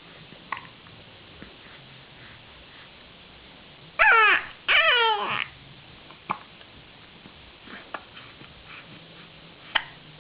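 Newborn baby making two short squealing cries about four seconds in, each falling in pitch, with a few small snuffles and clicks around them.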